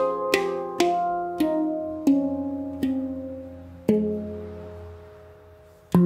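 Handpan in an F Equinox 10-note scale (ding F, Ab C Db Eb F G Ab C F), struck with the fingers: a slow phrase of single ringing steel notes, about one every half second to second, the last one about four seconds in left to ring and fade away.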